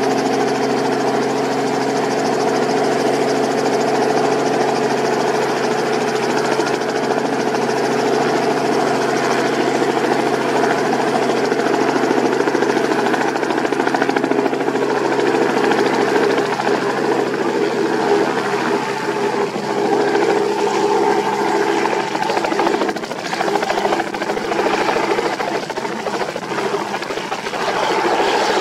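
Propeller aircraft's piston engine running steadily at an even pitch, close by; from about two-thirds of the way in the tone turns rougher and less even.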